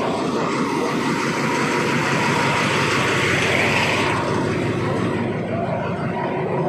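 Alsthom diesel-electric locomotive idling close by, a steady engine rumble. A loud hiss rises over it from about a second in and cuts off suddenly about four seconds in.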